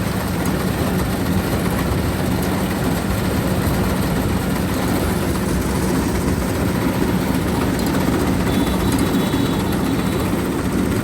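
Diesel engine of a Kubota DC-105X rice combine harvester running steadily, a constant loud drone with a low hum.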